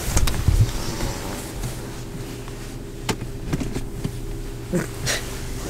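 Steady low hum inside a car cabin, with rumbling knocks in the first second and several short clicks and rustles later on.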